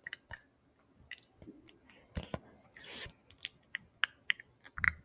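ASMR mouth sounds close to the microphone: irregular wet clicks, smacks and tongue sounds, with a short breathy, hissing sound about three seconds in.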